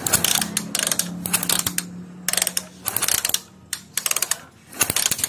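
Ignition spark snapping in quick bursts of clicks as the spark plug cap arcs to the cylinder fins of a Skygo Hero 125 engine, with a low hum under the first half. The spark shows that the replaced stator coil is now supplying current to the ignition.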